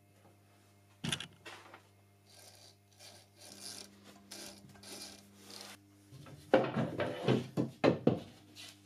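An MDF panel being handled against the saw cabinet: soft scraping first, then a quick run of louder wooden knocks and rubs about six and a half seconds in.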